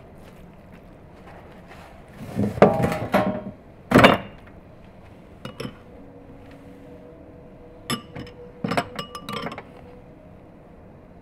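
Kitchenware clatter: a whole raw chicken and a baking tray are handled with a series of knocks, the loudest a sharp knock about four seconds in. Near the end a spoon clinks several times against a small ceramic bowl of sauce.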